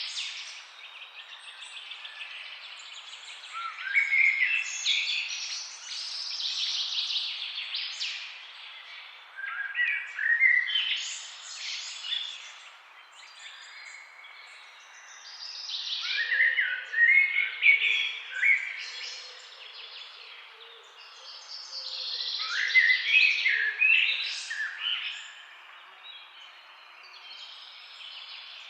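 Songbirds singing in bouts of quick, gliding phrases about every six seconds, over the steady rush of a flowing forest river.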